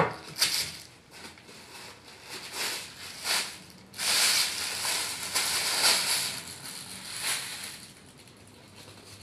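White tissue paper crinkling and rustling as sneakers are unpacked from a shoebox, with a sharp knock at the very start. The rustling comes in short crackles, then a longer, denser stretch about four seconds in that dies away near the end.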